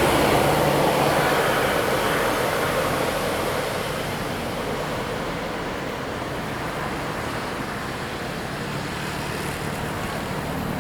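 Road traffic noise: the rush of a vehicle passing close by, loudest at first and fading steadily as it moves away.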